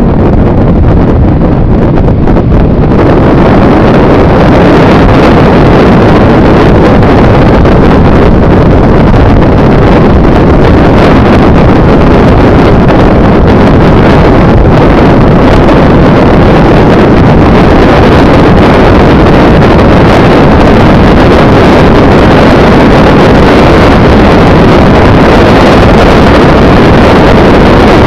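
Loud, steady wind buffeting the microphone together with engine and road noise of a moving motorcycle, with the rush getting a little fuller about three seconds in.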